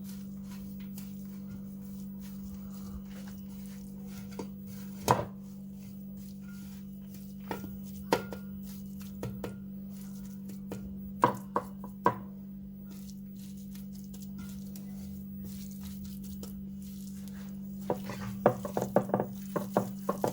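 A spoon knocking and scraping against a bowl while a chermoula marinade of garlic, parsley, spices, lemon and olive oil is mixed: scattered single knocks, then a quick run of them near the end, over a steady low hum.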